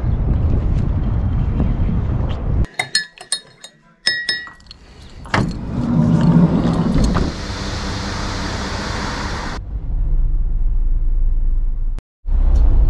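Wind buffeting the microphone at first. After a cut, keys jingle and small clicks sound as a van's door is worked. Near the end comes the steady low hum of a vehicle driving on the road.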